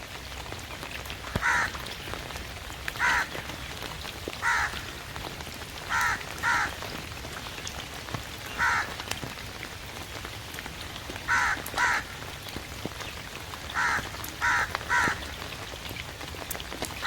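A crow cawing, about eleven caws, some single and some in quick pairs a second or more apart, over the steady hiss of falling rain.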